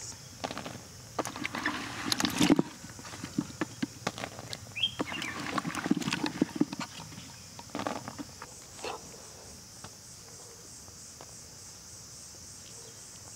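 Moist cucumber pieces picked from a pot and dropped by hand onto a woven mat: scattered soft taps and rustles, thinning out near the end. Crickets chirp steadily in the background.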